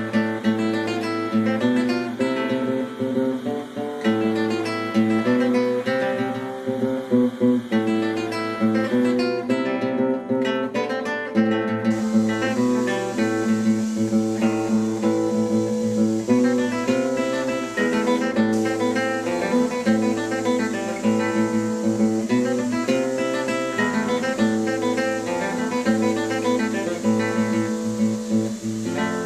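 Background music: acoustic guitar played in a Spanish, flamenco-like style, with quick plucked and strummed notes.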